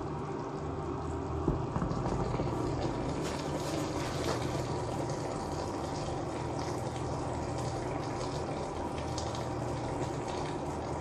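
Pot of chopped chicken simmering in the juice it has released: a steady bubbling sizzle over a low, even hum. A single light knock comes about a second and a half in.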